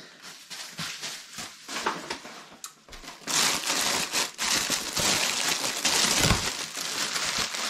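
Hand rummaging through polystyrene packing peanuts and plastic bags in a cardboard box: light scattered crinkles at first, turning into loud, continuous rustling from about three seconds in.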